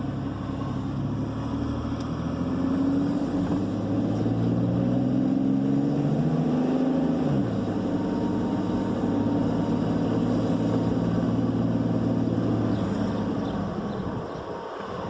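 Truck engine accelerating as it drives off, heard from inside the cab: the engine note rises for several seconds, drops about seven seconds in, then holds steady as the truck cruises.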